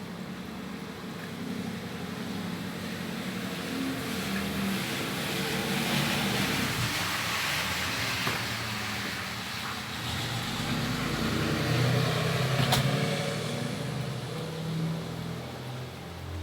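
Car tyres hissing on a wet road as traffic drives past. The sound swells and fades, building to a peak about three quarters of the way through.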